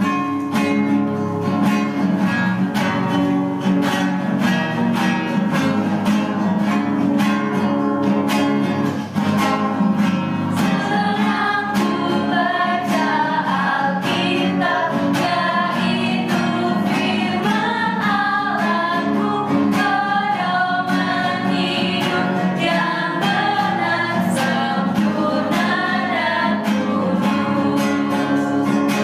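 Two women singing an Indonesian children's hymn together, with guitar accompaniment.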